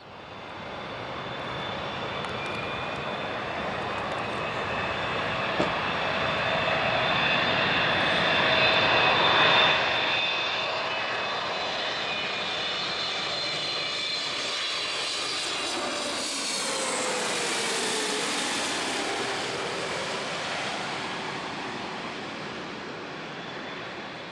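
Boeing 777-300ER's GE90 turbofan engines whining and rumbling on final approach, growing louder as the jet nears. About two-thirds of the way through the whine drops in pitch as the jet passes, then the sound slowly fades as it goes away toward the runway.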